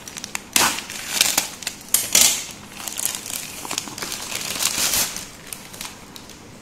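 Plastic courier mailer bag crinkling and rustling in irregular bursts as it is opened by hand and a cardboard box is pulled out of it, loudest about two seconds in.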